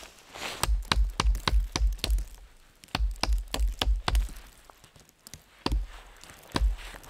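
Small hatchet used as a hammer to drive a tarp stake into frozen, snowy ground: sharp knocks, each with a dull thud, in two quick runs of about five or six blows at roughly three a second, then two single blows near the end.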